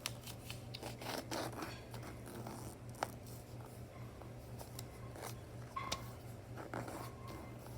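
Sheet of paper being folded and creased by hand: scattered rustling and scraping strokes with a few sharp taps, over a steady low hum.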